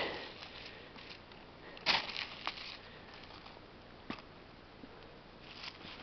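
A few short rustles and crunches in dry fallen leaves and forest litter, the loudest about two seconds in, with a single sharp click about four seconds in.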